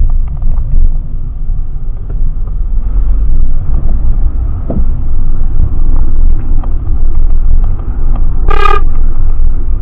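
A loud, steady low rumble throughout, with one short horn toot near the end.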